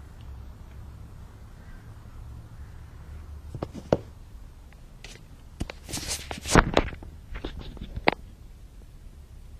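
Handling noise from the camera being moved about: a few sharp knocks about three and a half seconds in, a louder burst of rustling and knocks around six to seven seconds, and two more knocks near eight seconds, over a steady low hum.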